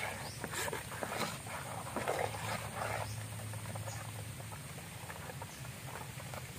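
A metal spoon stirring thin bánh xèo rice-flour batter in a stainless steel bowl: irregular clinks and scrapes against the bowl with wet sloshing, busiest in the first three seconds.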